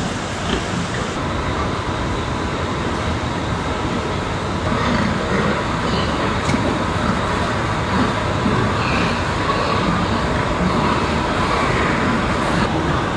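Steady rumbling noise of a running vehicle.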